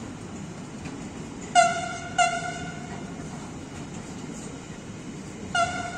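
Freight train of loaded car-carrier wagons rolling past with a steady rumble. Three short ringing tones cut through, two close together about a second and a half in and one more near the end, each starting sharply and fading within half a second; they are the loudest sounds.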